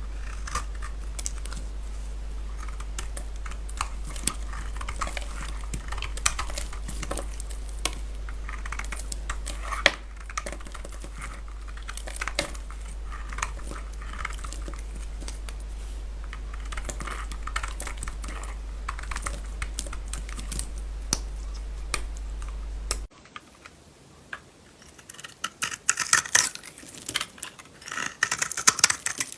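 A knife cutting dry soap: a long run of light, crisp clicks and crackles over a steady low hum. After a sudden cut about 23 seconds in, louder bouts of crunching and scraping follow near the end.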